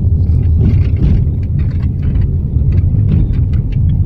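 Lada Kalina door creaking in short, irregular squeaks over a loud, steady rumble of road and engine inside the cabin on a rough road. The owner traces the creak to dust and dirt on the plastic roller of the door latch.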